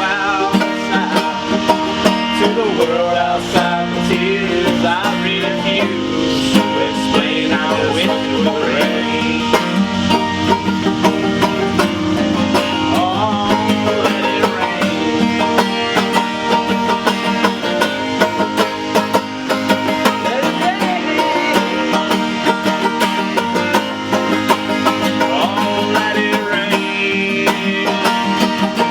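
Acoustic guitar and banjo playing together, a plucked string-band arrangement of a slow soul song.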